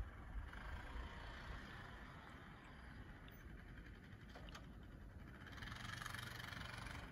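Kubota Sidekick utility vehicle with snowplow, running faintly at a distance, growing a little louder near the end.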